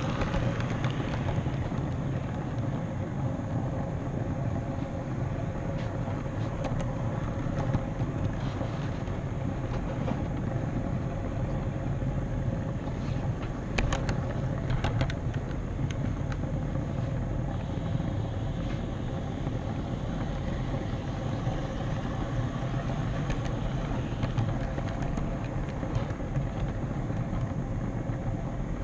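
HO scale model train running on the track, heard from the camera car riding on it: a steady rumble of wheels on rail with the hum of the locomotive's motor. A short cluster of clicks about halfway through, typical of wheels passing rail joints or turnouts.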